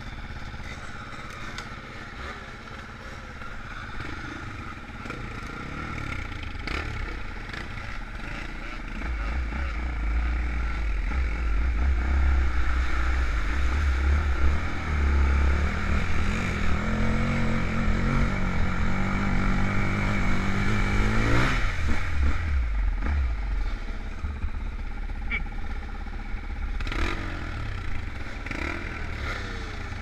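Off-road motorcycle engine heard from the rider's own bike, running along a trail. About ten seconds in it gets louder as the rider accelerates, and it revs up sharply about two-thirds of the way through. It then drops back to a lower, steadier note as the bike slows near the end.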